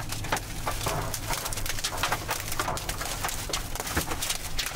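Hail pelting a vehicle's roof and cracked windshield: a dense, irregular clatter of sharp strikes over a low steady rumble.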